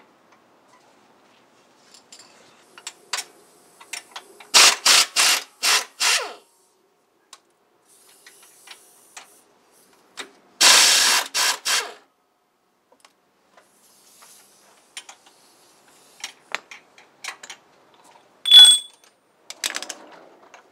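Impact wrench loosening bolts, run in a string of about five short bursts and then one longer burst of over a second. Between the bursts come scattered clicks of tools on metal, and one short ringing metal clink near the end.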